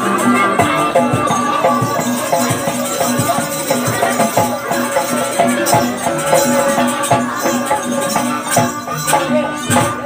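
Live traditional Banyuwangi barong music: a percussion ensemble keeping a steady, evenly pulsing rhythm with drum and rattle strokes under a sustained melody.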